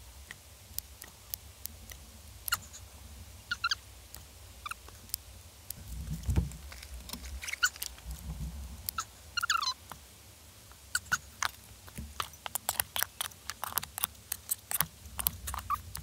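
Kitchen scissors snipping blanched octopus: irregular sharp clicks with a few short squeaks from the rubbery flesh, the snips coming thicker in the second half.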